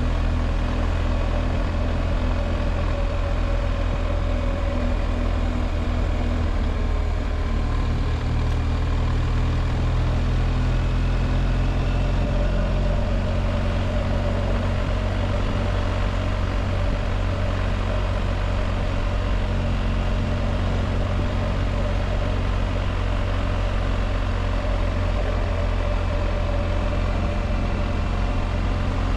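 BMW R1250GS Adventure's boxer-twin engine running steadily while riding, with wind and road noise; the engine note shifts slightly about seven seconds in and again around twelve seconds in.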